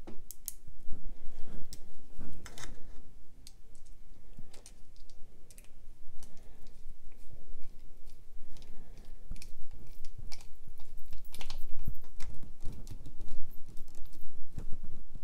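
Small body screws being set by hand into a folding knife's handle and driven in with a small screwdriver: scattered, irregular light metal clicks and taps.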